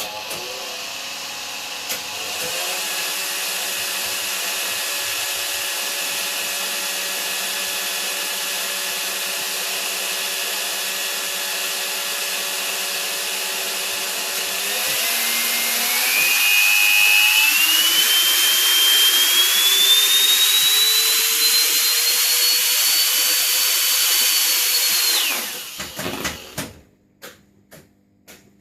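12 V brushed DC vacuum cleaner motor and fan running hugely over-voltaged, its whine and fan rush getting louder and climbing steadily in pitch as the voltage is raised. It cuts out abruptly, followed by a few sharp clicks: the motor destroying itself, with its commutator breaking up and its carbon brushes thrown out.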